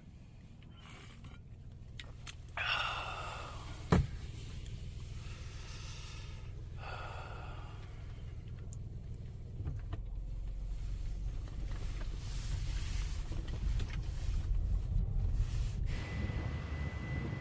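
Car running, with a steady low road or engine rumble that grows heavier about two thirds of the way through. There are two short swishing sounds, a sharp click about four seconds in, and a thin steady high tone near the end.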